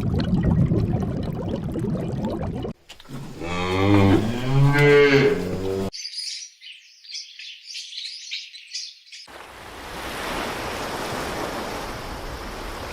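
A large animal's long, low call, rising and falling in pitch for about three seconds, set between stretches of low rumbling noise before it and high hissing and chirring after it.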